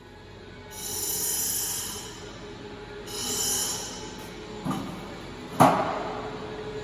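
Bandsaw cutting steel: a steady hum with bursts of high metallic hiss as the blade bites, about a second in and again about three seconds in. A sharp metal clank a little past halfway is the loudest sound.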